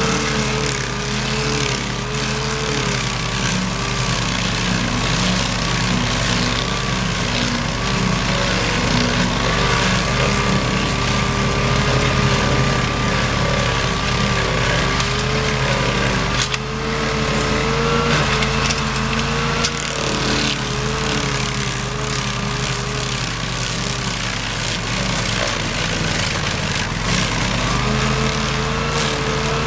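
Stump grinder's engine running steadily while its toothed cutting wheel grinds into a tree stump, throwing wood chips. The engine's pitch wavers a little as the wheel bites into the wood.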